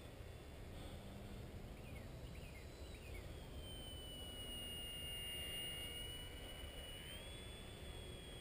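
RC model plane's motor and 8x4.5 propeller whining faintly in flight, a thin steady tone that drops in pitch about three seconds in and rises again near the end as the throttle changes. Low wind rumble on the microphone lies underneath.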